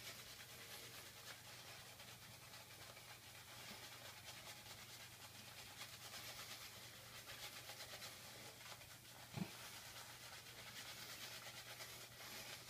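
Faint, soft swishing of a synthetic shaving brush being worked over the skin in uneven strokes, building lather on the face, with a small knock about nine seconds in.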